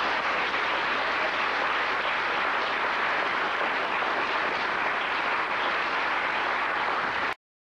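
Audience applauding steadily after a song ends; the sound cuts off abruptly near the end.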